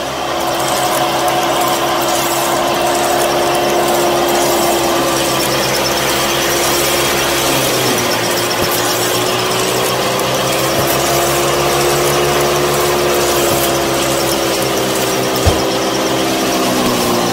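Small electric motor of a homemade miniature tractor-and-thresher model running with a steady whine, its pitch dipping and wandering as the load on it changes. A single short knock comes a little before the end.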